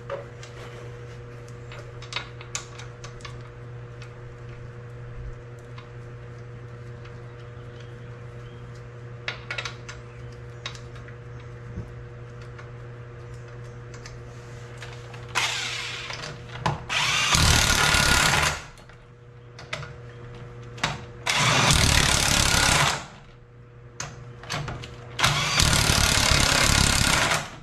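Power tool running the wheel's lug bolts in, in three runs of about two to three seconds each, after scattered light clicks of the bolts and tools being handled.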